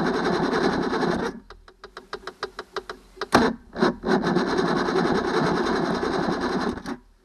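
Electric starter cranking a Johnson 90 hp V4 two-stroke outboard twice, first briefly and then for about three seconds, without the engine catching. A sharp click comes just before the second crank.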